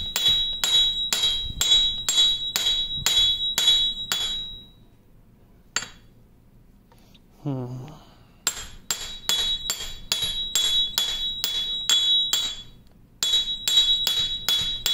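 Rapid light hammer taps, about three a second, each ringing metallically, driving a shaft and its bushing out of a cast-iron lathe apron. The tapping comes in three runs with short pauses between.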